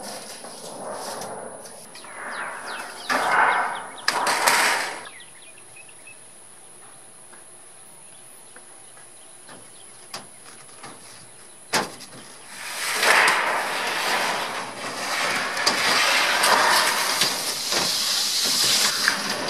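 5V crimp sheet-metal roofing panel scraping and sliding across wooden roof purlins as it is pushed up into place, in a few short scrapes, then a sharp click and a long scrape of several seconds near the end.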